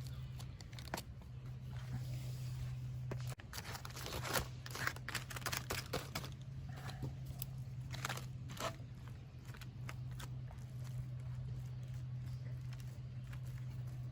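Aluminium foil of a campfire foil-pack meal crinkling and tearing in scattered short crackles as the pack is handled, over a steady low hum.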